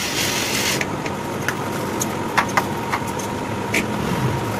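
Juki industrial sewing machine running steadily as it stitches fabric, with a few sharp clicks in the second half.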